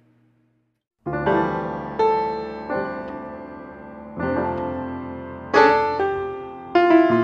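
Near silence for about a second, then slow solo piano music: notes and chords struck roughly once a second and left to ring.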